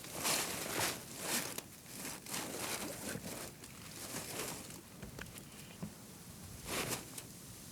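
Rustling and scuffing in dry leaves and brush: a run of short scrapes, several in the first three seconds, then one more near the end.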